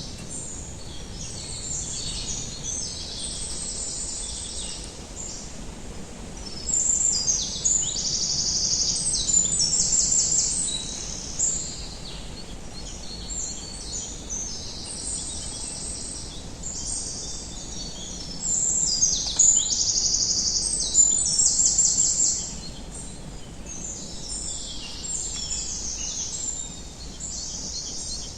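Songbirds singing in woodland: a dense chorus of high, rapid trills and chirps, several songs overlapping, louder in two bouts about a quarter of the way in and again past two-thirds. A faint low rumble lies underneath.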